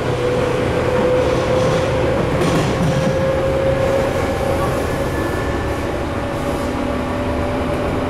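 Tobu 9000-series commuter train heard from inside its motor car, pulling away under armature-chopper control. A whine rises slowly in pitch over the steady running noise of wheels on rail.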